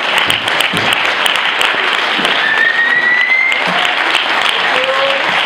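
Audience applauding steadily, with one short whistle that rises slightly in pitch about halfway through.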